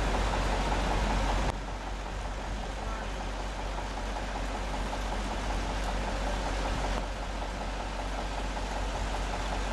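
Truck crane's engine running, a steady rumbling noise that drops a little in level and changes character about a second and a half in.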